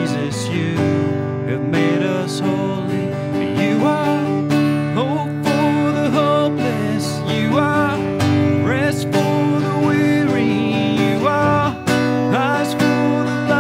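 A man singing a slow worship song, accompanying himself on a strummed acoustic guitar.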